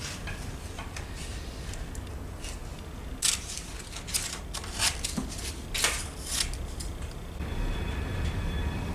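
Scissors snipping through cardboard, a run of short cuts in the middle of the stretch, while a bracket template is cut out. A steady low hum comes in near the end.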